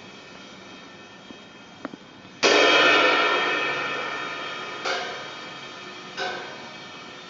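A loud metallic crash about two and a half seconds in that rings on and slowly dies away, followed by two lighter ringing strikes, like a cymbal or other metal object being hit.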